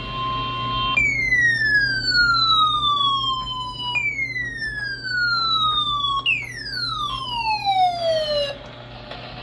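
Emergency-alert tones over a weather-radio broadcast: a steady alarm tone for about a second, then three electronic tones sweeping downward in pitch like a siren winding down. The last sweep falls fastest and lowest, and it stops a second before the end.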